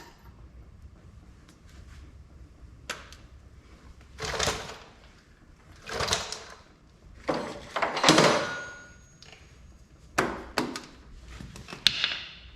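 Hand tools working on the tractor's metal PTO housing: a string of short scrapes and knocks, spaced a second or two apart, the loudest about eight seconds in.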